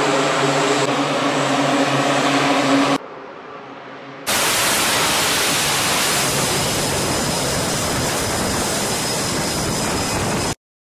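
E-2 Hawkeye's Allison T56 turboprop engines running with a steady, evenly pitched propeller drone. About three seconds in it drops away briefly, then gives way to a loud, steady rushing noise as an E-2 is catapult-launched off a carrier deck, cutting off abruptly near the end.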